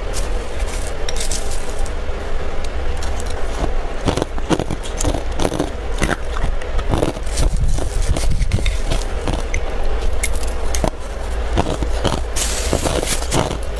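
A metal spoon scraping and scooping through a bowl of crushed ice, with dense, irregular crackling and crunching of ice throughout. A steady low hum runs underneath.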